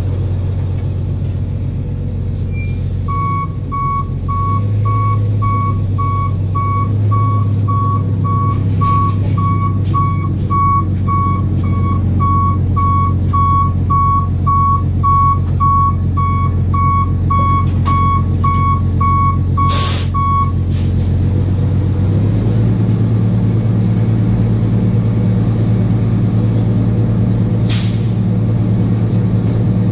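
A truck engine runs steadily while the truck's reversing alarm beeps about twice a second for most of the first two-thirds. Two short air-brake hisses come near the two-thirds mark and near the end. The engine note rises slightly just after the beeping stops.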